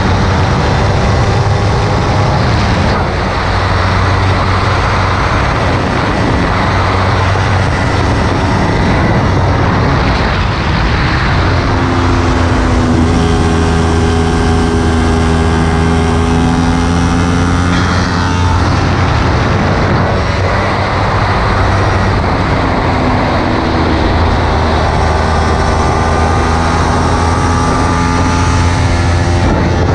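Kawasaki Ninja 300's parallel-twin engine running hard on track, its pitch rising and dropping several times as the rider works the throttle and gears, holding a steady note for a few seconds in the middle. Constant wind rush on the bike-mounted camera runs underneath.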